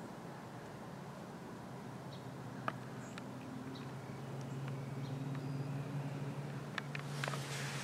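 Quiet outdoor ambience with a steady low hum underneath and a few faint clicks. Near the end there is a louder patch of rustling and clicks as the camera is handled and swung.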